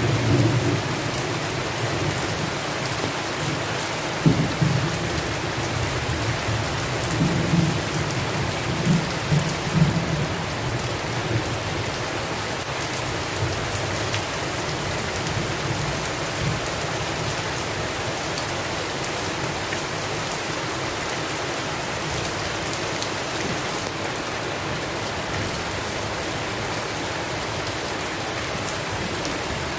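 Steady heavy rain on a surface with low rolls of thunder in the first third: a rumble at the start, another about four seconds in, and a longer run around seven to ten seconds. After that, only the even hiss of the rain.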